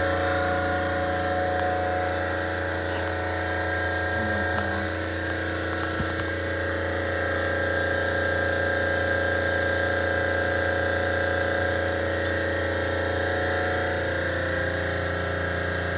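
Water-cooled Copeland refrigeration compressor running steadily with a constant hum and whine, while the system is being charged with R-134a.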